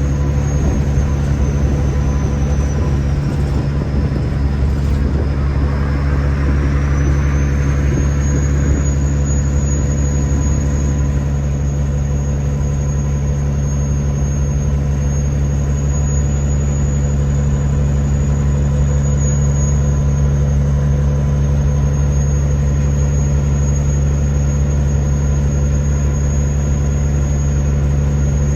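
Kenworth W900 semi truck's diesel engine running steadily with a deep, even drone and a thin high turbo whistle. The whistle dips in pitch for a few seconds early on, with a brief rush of air noise, then holds steady.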